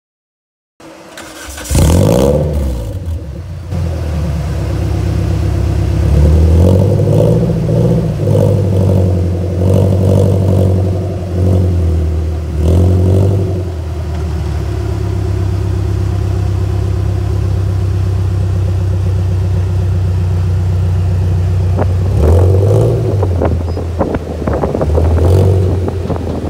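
Dune buggy engine running and being blipped, revving up and dropping back several times. It then holds a steady idle for several seconds before a few more revs near the end.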